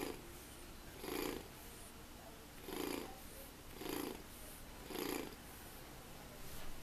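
Electronic purr from a 1993 Mattel Purring Simba plush lion cub, set off by a hand pressing its side. A recorded purr pulses about once a second, six times, the last one weaker.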